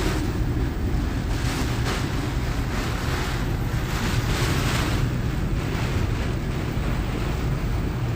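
Hurricane wind gusting hard and buffeting the microphone, a heavy rumble with hiss that swells and eases in gusts, with wind-driven rain.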